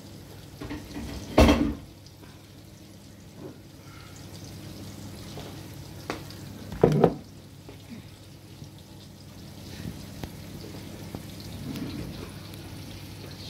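Floured pollock pieces and onions and peppers frying in two pans, a low steady sizzle. Two loud knocks break it, about a second and a half in and again about seven seconds in.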